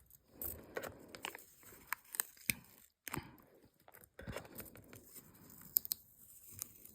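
Stickers being peeled from a sticker sheet and handled up close: a string of sharp crackles and clicks with short rasping peels.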